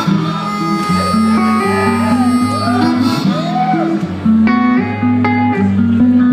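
Live blues music: an instrumental break between verses, led by guitar over a low repeating bass line, with some bent, gliding notes.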